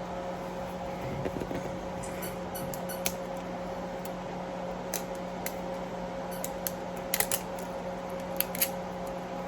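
Scattered short clicks and crackles of toy packaging being handled and opened, about eight of them, mostly in the second half, over a steady low hum.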